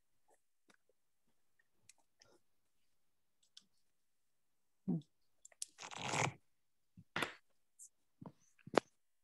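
Faint, scattered clicks from a computer mouse and desk handling, with a short rustle about six seconds in.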